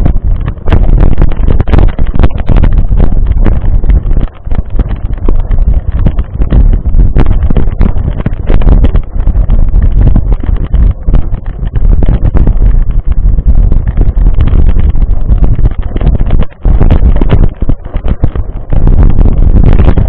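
Wind buffeting hard on the camera's microphone as a mountain bike rolls along a gravel dirt track, with many sharp clicks and rattles from the tyres on loose stones and the bike jolting.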